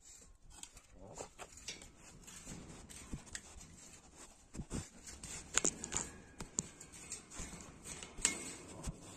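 A small shovel scraping and tapping on packed dirt in irregular strokes while dog droppings are shovelled up, with several sharper clicks in the second half.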